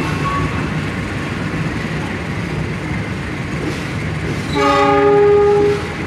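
Long-distance passenger train coaches rolling past a station platform with a steady rumble of wheels on rail. About four and a half seconds in, a train horn sounds once, a steady chord lasting a little over a second.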